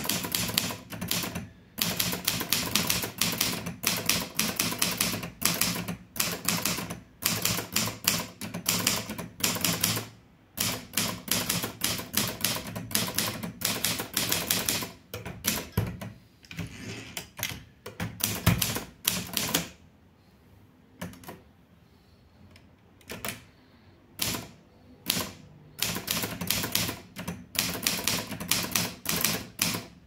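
Litton Royal 203 manual portable typewriter being typed on: quick runs of key strikes, with a pause of a few seconds about two-thirds of the way through before the typing resumes.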